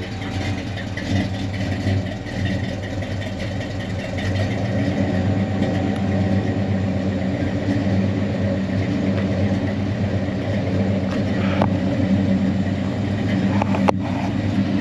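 Chevy C-10's engine idling steadily through newly fitted mufflers, real quiet now. A single sharp click comes near the end.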